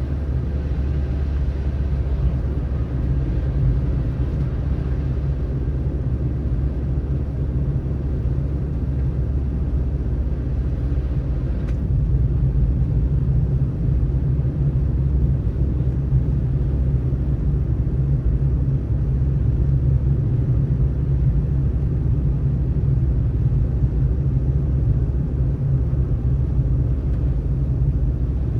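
Steady low rumble of a car driving on a snowy road: road and engine noise with no change in pace.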